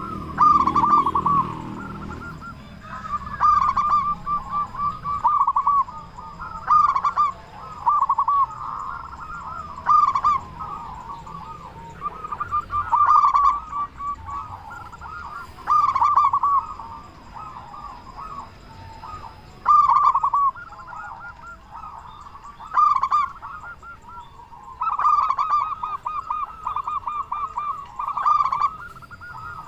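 Zebra dove (perkutut) singing repeatedly: short phrases of quick rippling coos, one every one to three seconds, with a run of phrases close together near the end.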